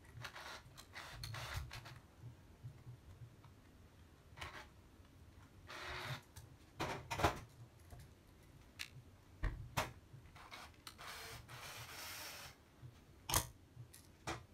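A wall light switch being handled and wired by hand: small clicks, taps and rubbing of metal and wire, with a few sharper clicks and short stretches of scraping.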